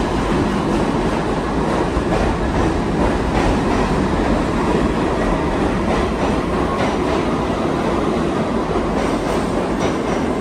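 R68/R68A New York subway cars running out of the station past the platform: a loud, steady rumble of wheels on rail, with wheels clicking over rail joints now and then.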